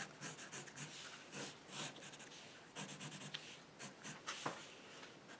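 Pencil lead scratching across drawing paper in a series of short strokes with brief pauses between them.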